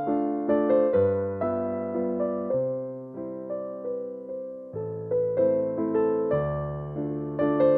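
Background music: a gentle piano or electric-piano melody with sustained bass notes.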